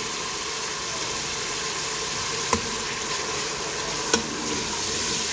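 Spiced tomato-onion masala sizzling steadily in oil, fully fried with the oil separated. A steel spoon stirs it and clicks against the pot twice, about two and a half and four seconds in.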